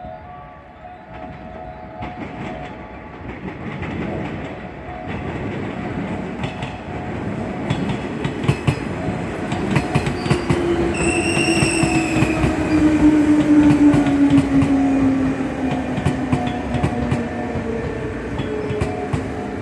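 Electric commuter train running in on the track, growing louder, its wheels clattering over rail joints. A motor whine slides slowly down in pitch, and a brief high tone sounds about eleven seconds in.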